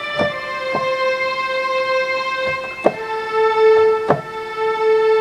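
Software string instrument played from a MIDI keyboard: long held notes, stepping down to a lower note about three seconds in, with a few short clicks over them.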